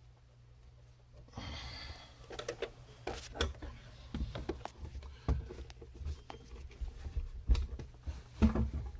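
Scattered light clicks, knocks and rustling of a fuel pump being handled and fitted into the opening of a plastic fuel tank, starting about a second in.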